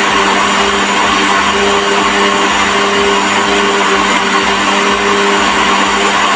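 Electric kitchen blender running steadily at high speed, whirring through pancake batter of eggs, sugar, salt and milk.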